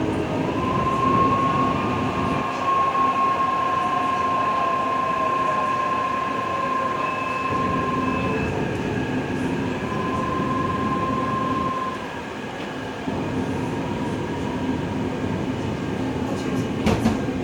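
Taipei Metro C381 train decelerating under its IGBT-VVVF drive. A steady high whine stops about eight seconds in, returns for a couple of seconds and ends around twelve seconds, with lower tones gliding down beneath it over the running rumble. This is the braking noise the uploader calls abnormal. A short sharp knock comes near the end.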